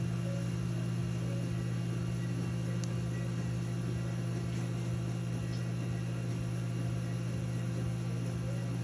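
Steady low electrical hum from equipment in a treatment room, with one or two faint small clicks.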